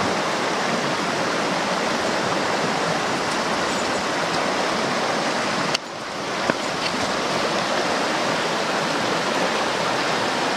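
Creek water running fast over rocks and riffles: a steady rushing hiss. It drops out abruptly for a moment a little past halfway, then carries on as before.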